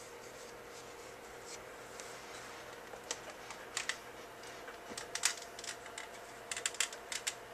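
Light clicks and taps of a small cardstock card handled between the fingers, in scattered bunches from about three seconds in, over a faint steady hum.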